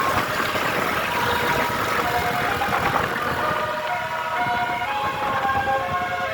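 Tour bus's telolet basuri multi-tone horn playing a tune of short held notes that step up and down in pitch, over the bus's engine and road noise.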